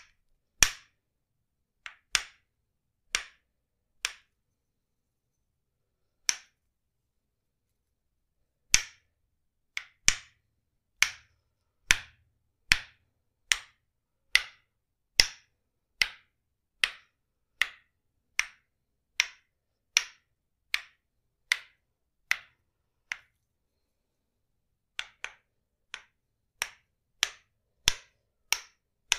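Tok-Sen massage tapping: a wooden mallet striking a wooden wedge held against the body, single sharp knocks at a steady pace of a little over one a second, broken by a few short pauses.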